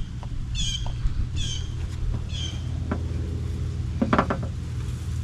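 A bird calling repeatedly: short high calls, each falling in pitch, about one a second during the first half, over a steady low hum. There are a few light clicks and a short rattle about four seconds in.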